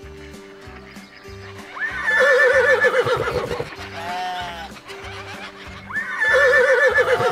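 A horse whinnying twice, each a long wavering neigh, the first about two seconds in and the second near the end, over background music with a steady beat.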